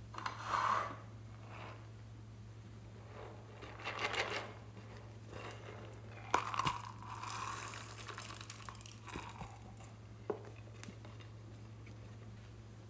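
Hands handling and squeezing small plastic toys and containers: crinkling and crunching in a few short bursts, about a second, four seconds and six to eight seconds in, with a couple of sharp clicks about ten seconds in. A steady low electrical hum runs underneath.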